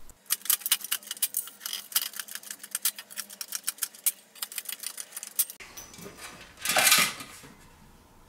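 Hand pop-rivet tool setting stainless steel rivets into a steel ammo-can lid: a rapid run of sharp metallic clicks, several a second, for about five seconds. Then one louder, brief scraping rustle about seven seconds in.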